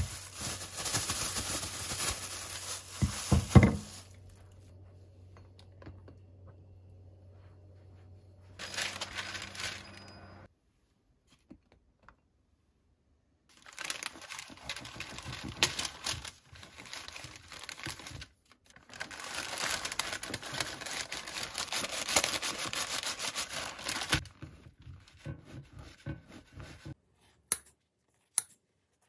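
Plastic wrap crinkling as a frozen bagel is unwrapped, then a long stretch of parchment paper crinkling and rustling while the bagel wrapped in it is cut with a knife. A few short snips of kitchen scissors cutting the bagel come near the end.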